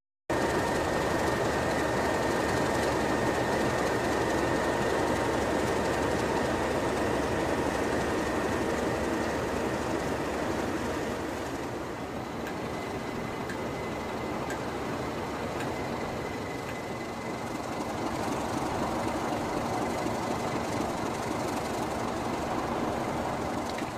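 Class 37 diesel locomotive's English Electric V12 engine running steadily, with a constant high whine over the engine noise.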